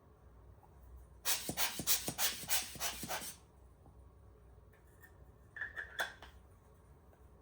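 A quick series of rubbing strokes for about two seconds while cleaning camera gear, then a shorter squeaky rub a few seconds later.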